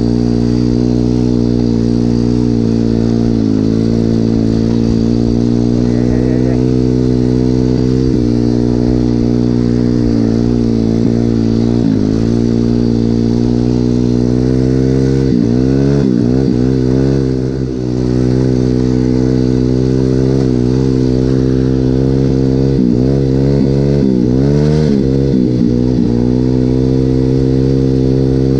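Regulmoto Seven Medalist 150E pit bike's single-cylinder four-stroke engine running under steady throttle while riding through snow. The revs dip and pick up again briefly a few times after the middle.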